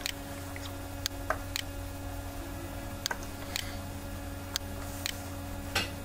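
About nine short, sharp computer mouse clicks, spaced irregularly, over a steady low electrical hum.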